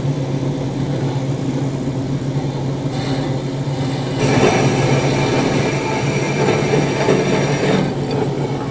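Vertical bandsaw running with its blade cutting through bent metal tubing. The cut gets louder and harsher from about four seconds in until near the end.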